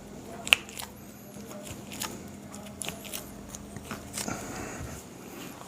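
Joints cracking under chiropractic manipulation: one sharp, loud pop about half a second in, followed by several fainter clicks and crackles.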